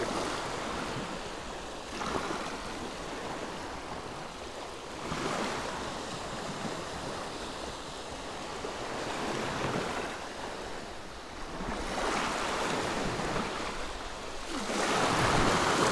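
Small waves washing up the beach, a swell of surf every few seconds, the loudest near the end.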